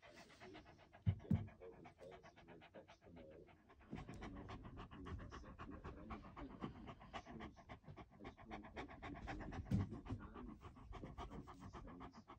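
A beagle panting fast and hard, in rapid even breaths that grow louder about four seconds in, during a panic, seizure-like episode of Lafora disease. A few soft thumps sound near the start and once more near the end.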